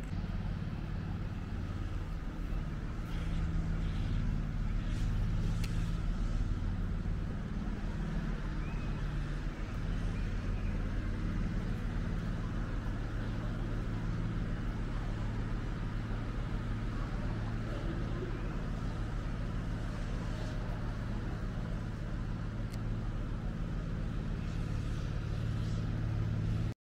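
A car's engine and road noise as a steady low drone. It cuts off suddenly near the end.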